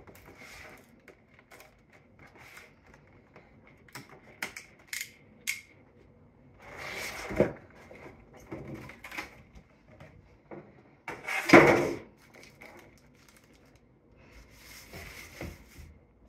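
Plastic packaging being cut open and handled: scattered sharp clicks, then several crinkling rustles, the loudest about two-thirds of the way through.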